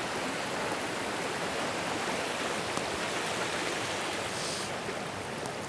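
Steady rush of a fast-flowing stream, an even wash of water noise.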